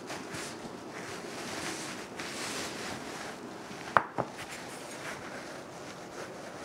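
Hands rubbing and brushing over a floured sheet of rolled pasta dough on a counter, a soft rubbing noise, then two sharp knocks about four seconds in as a ceramic bowl is lifted off the counter.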